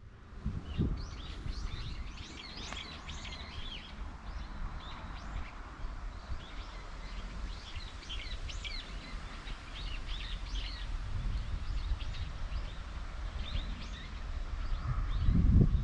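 Small birds chirping repeatedly in quick short calls, over a steady low rumble that grows louder near the end.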